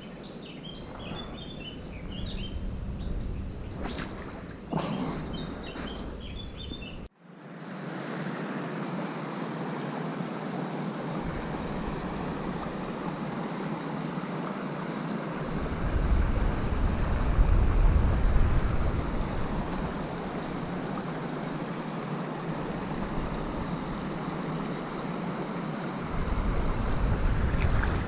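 Small birds chirping over a steady rush of flowing stream water. About seven seconds in the sound cuts sharply, then the water rush continues with wind rumbling on the microphone at times.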